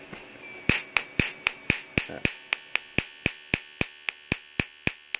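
Homemade Marx generator, driven by a 15,000-volt flyback supply, firing in a regular train of sharp snapping cracks, about four a second, starting a little under a second in. Each crack is the capacitor stages discharging in series as a spark of about 50,000 volts jumps the gap between the nail electrodes.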